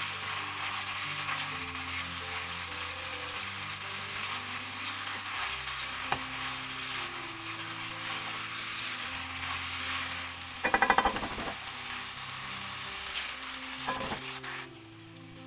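Mutton pieces sizzling in oil and masala while a spatula stirs them in a wok. About eleven seconds in there is a brief loud rattle, and the sizzling cuts off suddenly near the end.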